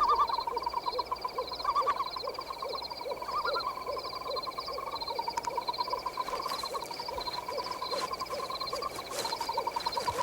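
Night-forest animal sound effects: a layered chorus of trilling calls with a low call repeating about two to three times a second, heard by a tagger as owl hooting.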